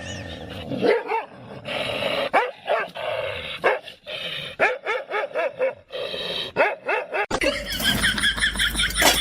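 A dog barking and yipping in a quick run of short calls that rise and fall in pitch. Near the end the sound cuts abruptly to a different, noisier recording with a low hum.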